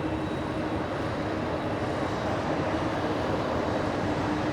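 British Airways Airbus A380's four Rolls-Royce Trent 900 jet engines at takeoff thrust: a steady rumble with a low hum through it, growing slightly louder.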